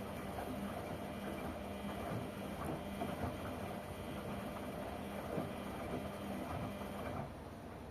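LG washing machine in its wash cycle: the motor hums as it turns the drum, with irregular swishes and knocks from the tumbling load. The drum stops about seven seconds in, as it pauses between turns.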